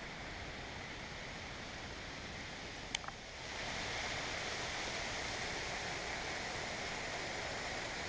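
Steady rushing of water from a waterfall pouring over a rock ledge. A brief click comes about three seconds in, and after it the rushing is a little louder.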